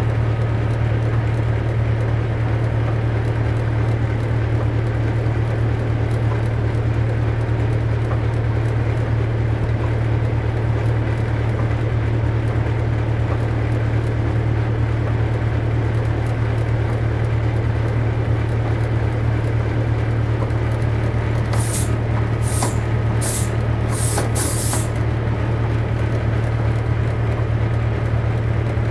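Class 47 diesel locomotive's Sulzer 12-cylinder engine running at a steady low drone, heard from inside the cab. About three-quarters of the way through come five short, sharp hisses.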